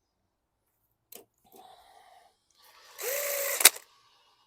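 Cordless power driver run briefly, driving a screw: a short motor whine about three seconds in that rises and sags in pitch as the screw seats, ending in a sharp click, with a lighter tool click and handling noise before it.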